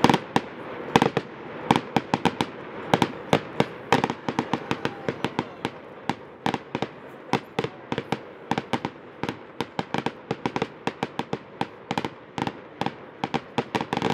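Fireworks display: a rapid, irregular string of sharp bangs from bursting aerial fireworks, several a second.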